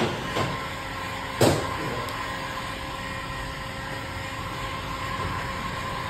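Handheld electric heat gun running steadily with a faint motor whine, blowing hot air to shrink window tint film onto a windshield. A single sharp knock sounds about a second and a half in, with a fainter one just before.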